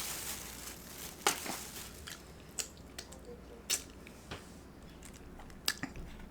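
Close-miked chewing and biting of food, with a few sharp, separate crunchy clicks spread through.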